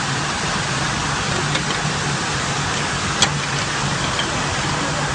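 Industrial carpet washing machine running: a steady rushing noise over a low hum. A single sharp click comes about three seconds in.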